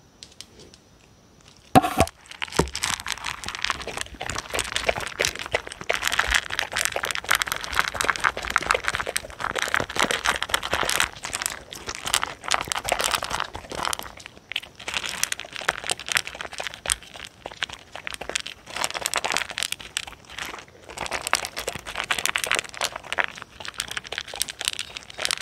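Dogs crunching dry kibble from a plastic tray, miked up close: a sharp click about two seconds in, then a continuous run of crunches and pellet clicks against the plastic.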